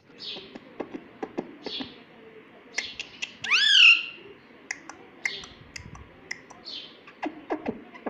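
Rose-ringed parakeet making a run of sharp clicks and short chirps, with one loud rising-and-falling whistled call about three and a half seconds in.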